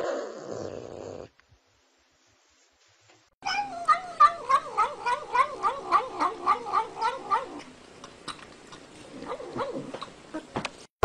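A cat yowling: a long warbling cry that wobbles up and down in pitch about three to four times a second, then trails into softer cries near the end. Before it there is a short sound at the very start and about two seconds of silence.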